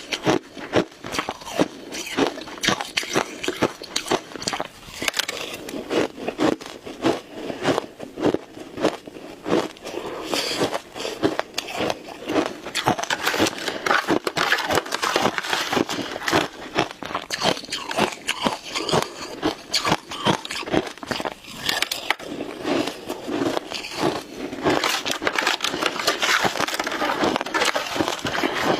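Shaved ice being bitten and chewed: a dense, unbroken run of crackling crunches.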